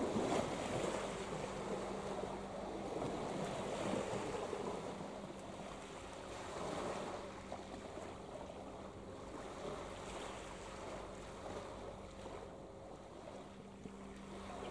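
Steady low drone of ships' engines across the harbour, holding a constant pitch, under a wash of wind and water noise.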